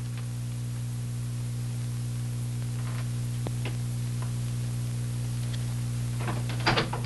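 Steady electrical hum and hiss of an old film soundtrack, with a couple of faint ticks in the middle and a few sharper knocks near the end.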